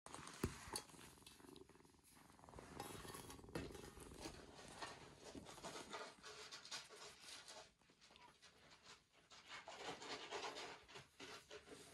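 Faint purring from kittens, mixed with rustling as they play-fight on a lap, and one sharp tap about half a second in.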